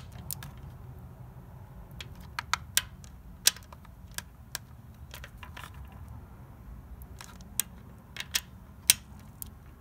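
Click-type inch-pound torque wrench tightening camshaft bearing-cap bolts: scattered sharp ratchet clicks, bunched a couple of seconds in and again near the end. Among them is the very light click of the wrench breaking over at its 168 inch-pound (14 foot-pound) setting, the sign that the bolt has reached spec.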